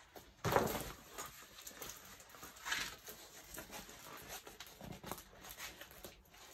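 Soft rustling and handling of a rolled diamond-painting canvas in its plastic wrapping, with brief louder rustles about half a second in and near three seconds, and fainter scuffs later.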